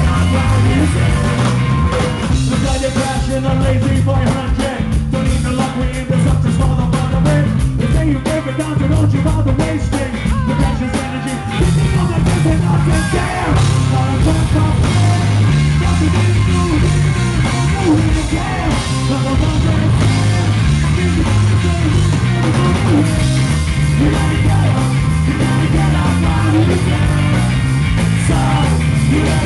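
Rock band playing live, loud: electric guitar and drums with a male singer's lead vocals. The sound dips briefly about eleven seconds in, then the full band comes back in.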